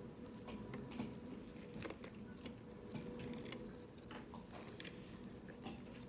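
Close-up mouth sounds of a person chewing a big bite of Italian beef sandwich: irregular soft wet smacks and clicks, several a second, over a faint steady hum.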